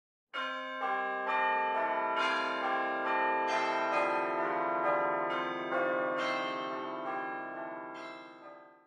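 Church bells ringing in turn at several pitches, a new strike about every half second, each ringing on under the next. The ringing fades away near the end.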